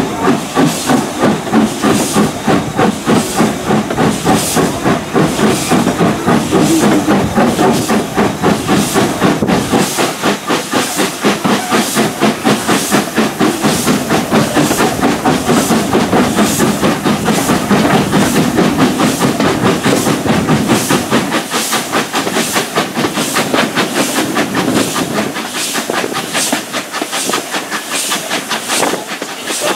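Steam locomotive pulling a train away from a halt, its exhaust beating in an even rhythm with steam hissing, over the rumble of carriage wheels on the rails.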